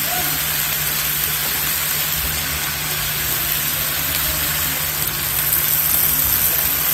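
Ground pork sizzling and steaming in a wide frying pan just after a little water is added, a steady hiss with a low steady hum underneath.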